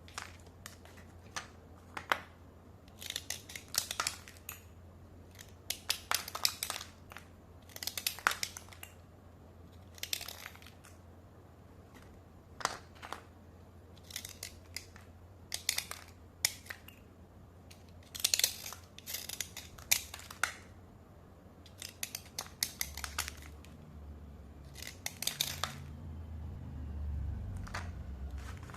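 Kangaroo-brand slate pencils being dry-scraped: short, gritty scraping strokes coming in irregular bursts, some in quick clusters of several strokes.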